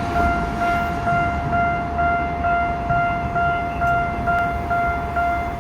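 Railway level-crossing warning bell ringing: an electronic ding repeating evenly about twice a second, over a low rumble.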